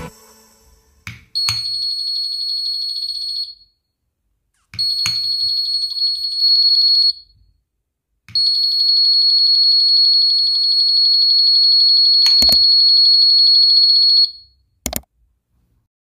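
The 12 V buzzer in a homemade 433 MHz wireless doorbell receiver gives a loud, steady, high-pitched tone three times as the transmitter's push switch is pressed: about two seconds, then two seconds, then about six seconds. Sharp clicks come around the buzzes.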